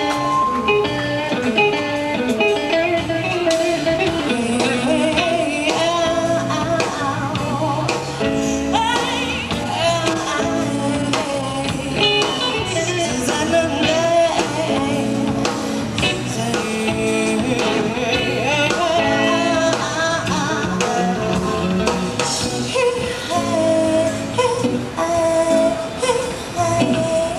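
A band playing blues-rock with guitar and drums during a sound check.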